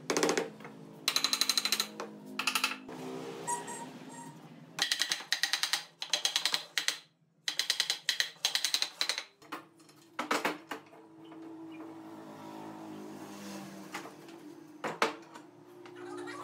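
Power screwdriver driving screws in several short bursts of rapid clacking, each about a second long, over faint background music.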